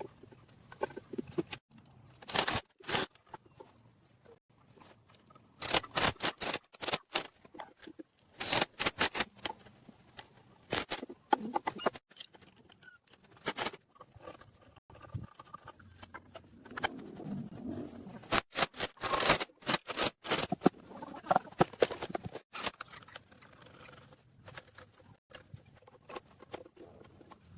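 Bursts of sharp metallic clinks and scrapes, in irregular clusters with short quiet gaps between them, as of hand tools working on metal.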